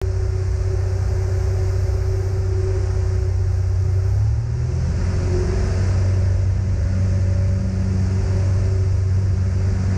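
Light single-engine propeller plane's engine and propeller droning steadily, heard inside the cockpit, with a slight shift in pitch about four seconds in.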